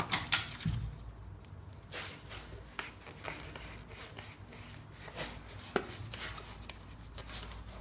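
Plastic sewer pipe elbow being pushed and twisted into a silicone-greased rubber adapter seal in a cast-iron soil pipe: scattered rubbing and knocks. A sharp knock comes just after the start and another a little before six seconds in.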